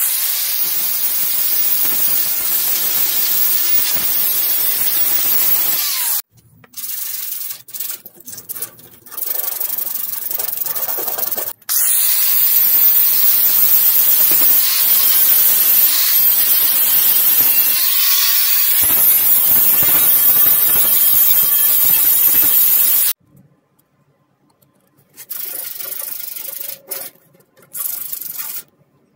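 Angle grinder with an abrasive disc grinding on a painted sheet-metal tool chest, sanding down the finish for refinishing. It runs in long loud stretches that cut off abruptly several times, with a few shorter, quieter bursts near the end.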